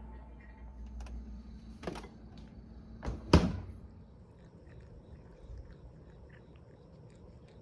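Household knocks: two light clicks, then one loud sharp thump a little over three seconds in.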